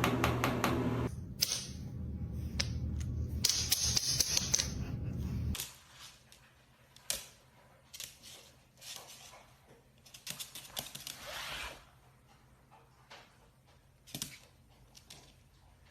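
A series of sharp clicks and taps, scattered and irregular, after a steady low hum that stops about five and a half seconds in.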